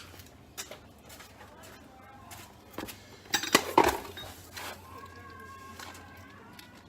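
Hand work on a car's brake parts: scattered clicks and light knocks of metal parts and tools being handled, with a quick cluster of louder clanks about three and a half seconds in.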